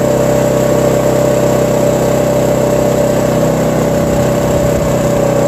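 Firman WH3300 dual-fuel inverter generator running steadily on propane, close by, with no load on it yet. It holds an even hum at one constant pitch.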